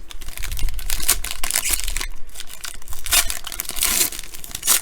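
Plastic foil wrapper of a trading card pack being torn open and crumpled, an irregular run of crinkling crackles.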